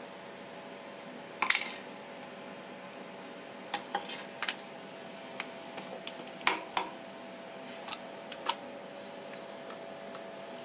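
Scattered sharp clicks and small knocks, about eight in all and irregularly spaced, from a plastic syringe and hands working over a porcelain sink, over a steady low hum.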